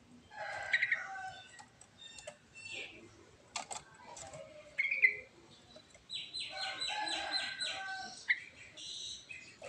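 Yellow-vented bulbul (trucuk) singing a varied series of short phrases with brief pauses, including a quick run of repeated notes in the second half.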